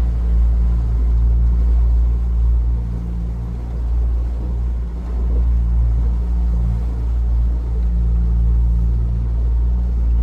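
Steady low rumble of a vehicle in motion, with a constant low drone and no sharp events.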